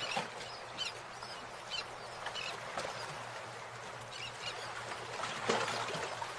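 Outdoor rural ambience: birds chirping now and then over a steady background hiss, with one brief louder noise about five and a half seconds in.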